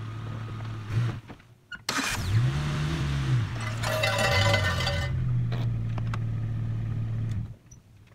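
Jeep Cherokee's 4.0-litre inline-six running, revving up and back down as the Jeep pulls away across gravel, then running steadily until the sound cuts off suddenly near the end.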